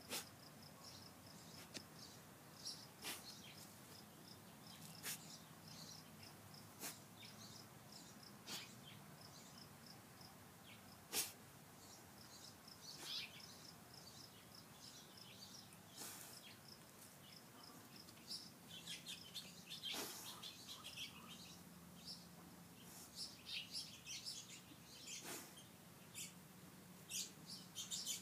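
Quiet garden ambience: small birds chirping faintly, in quicker runs of short notes during the second half, with scattered sharp clicks or taps every few seconds.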